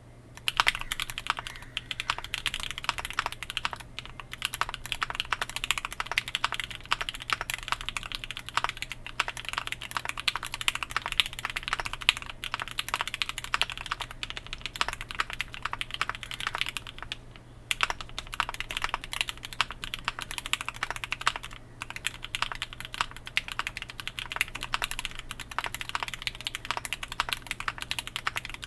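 Typing on a Vega65 custom mechanical keyboard with lubed Gateron Ink Black V2 linear switches, an aluminium plate and ABS keycaps. It makes a fast, continuous stream of key clacks, with a few brief pauses.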